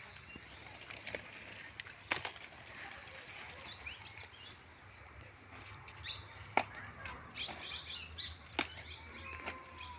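Birds chirping in short bursts, with a few sharp clicks or taps scattered through, the loudest about two thirds of the way in.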